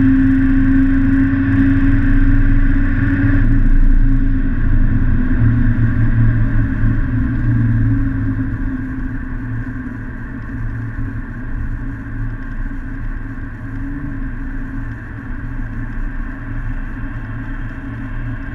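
Car engine and road noise heard from inside the cabin while driving: a steady engine drone, loudest for the first few seconds, then easing to a quieter, even cruise.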